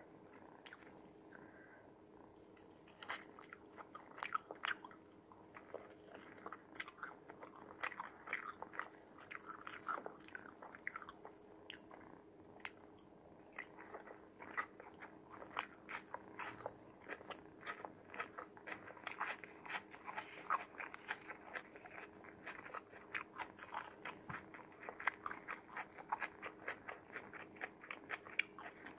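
A kitten's paws tapping and scratching at a smartphone screen: quick, irregular small clicks and crackles, several a second, starting about three seconds in.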